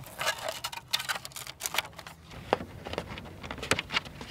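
Small clicks, taps and rustles of a 4-cell LiPo battery and its leads being pushed into a 3D-printed plastic RC airplane's fuselage, then the canopy pressed on, with a few sharper clicks in the second half.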